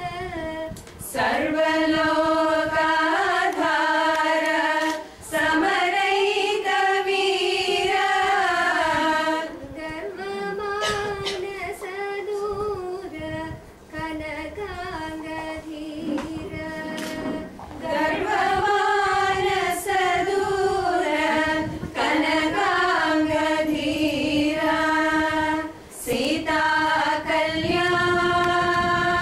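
A group of women singing a song together, unaccompanied, in phrases of a few seconds with long held notes that glide between pitches and short breaks between phrases.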